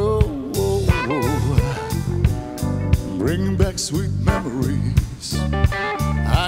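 A live band plays a bluesy soul groove with electric guitar, bass and drums on a steady beat, while a man sings over it.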